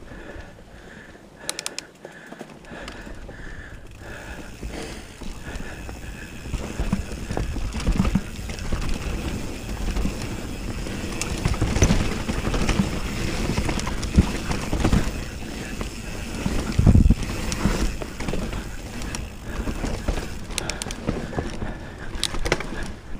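Mountain bike riding fast down a dirt trail, with wind rushing on the microphone, tyres rolling over rough ground, and the bike rattling and knocking over bumps. It gets louder from about six seconds in, with a hard knock near seventeen seconds.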